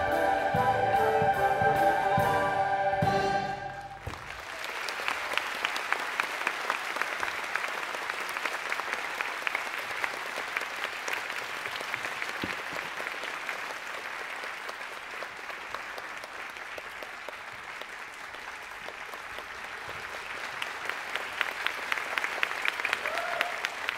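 A children's choir holds its final chord, which stops about four seconds in, and is followed by audience applause that grows louder near the end.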